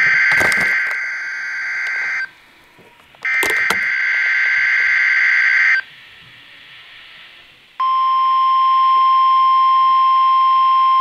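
NOAA Weather Radio emergency alert played through a Baofeng UV-5R handheld radio's speaker: two long bursts of screechy SAME header data, with a faint hiss between them, the header coding the alert as a Special Weather Statement. About eight seconds in, the steady 1050 Hz warning alarm tone starts and holds.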